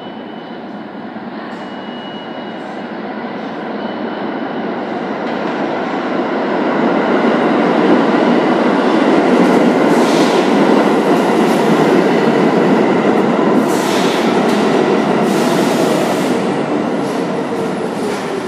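New York City subway train pulling into an underground station: its rumble grows louder over the first eight seconds as the headlights approach, then holds as the cars run past the platform, easing a little near the end as it slows. Several sharp clanks of the wheels over the rails sound in the second half.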